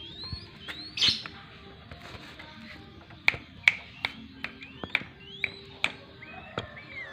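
Yellow-vented bulbul (trucukan) singing vigorously: a quick run of short rising whistled notes mixed with sharp, loud chips.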